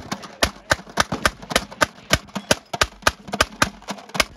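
Replica M1862 .58-calibre hand-cranked Gatling gun firing as its crank is turned: a steady string of sharp shots, about four a second.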